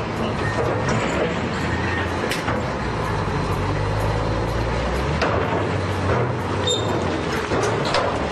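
Heavy diesel engines of earth-moving machines running hard under load, with sharp metal knocks and clanks as the machines strain against the truck's body. A reversing beeper sounds faintly a couple of times in the first two seconds. The engine note shifts about five seconds in.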